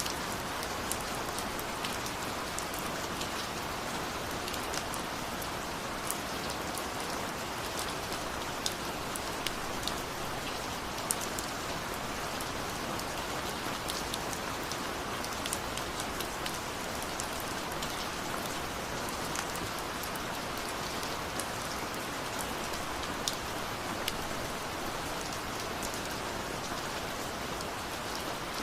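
Steady rain falling, an even hiss with many individual drops ticking and pattering sharply throughout.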